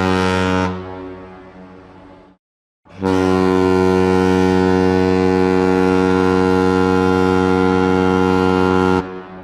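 Ship's horn blowing a deep, steady note: a short blast that fades away, then after a brief gap one long blast of about six seconds that stops near the end and trails off in echo.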